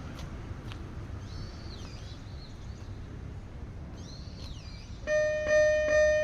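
A few birds calling over steady outdoor background noise. About five seconds in, a mini railway crossing's warning bell starts ringing: a loud repeating electronic ding, about two strokes a second.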